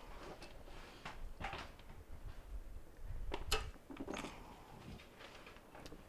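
Wire strippers working on a refrigerator's heavily insulated wires: faint scraping and handling with a few small clicks, the sharpest about three and a half seconds in.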